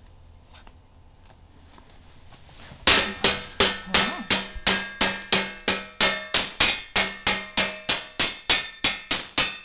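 An upturned metal loaf pan struck again and again with the handle of a white plastic spoon, held by a baby. The strikes start about three seconds in and then come in a steady rhythm of roughly three a second, each with a short metallic ring.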